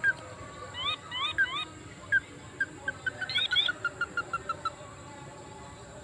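Crake calls: sets of three short rising notes, then a run of short clipped notes that comes faster and faster and then stops.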